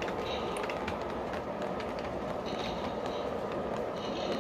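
Model train freight cars rolling past on O-gauge track: a steady rolling rumble of metal wheels with irregular sharp clicks over the rail joints, as the last cars and the caboose go by.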